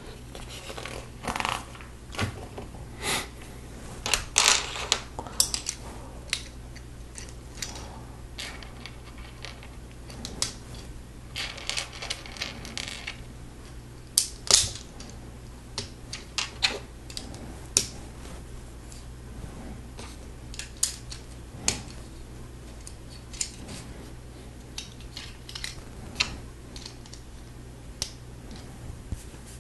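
LEGO plastic bricks and Technic parts clicking and snapping together as they are pressed into place, in irregular sharp clicks. Around the middle come a couple of seconds of rattling loose pieces.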